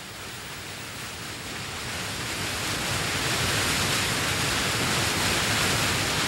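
Rushing river rapids: a steady wash of white water that swells over the first few seconds and then holds.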